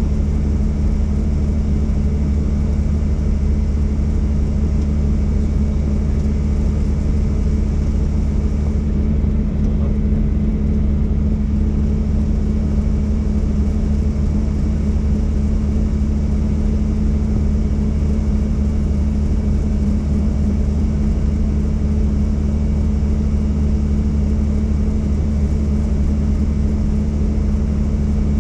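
Helicopter in operation: a steady, loud, low drone of engine and rotor that holds an even pitch throughout.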